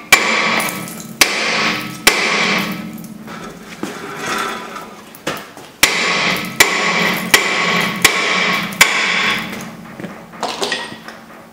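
A large hammer striking a rusted cast-iron brake rotor on the rear hub of a 2000 Mercury Grand Marquis, to knock it loose from the hub. There are about eight hard metallic blows with a pause of a few seconds after the first three, and each one leaves the rotor ringing. A few lighter taps come near the end.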